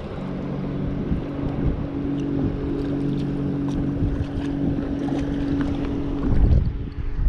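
A boat motor hums steadily over wind buffeting the microphone, the hum stopping about six and a half seconds in.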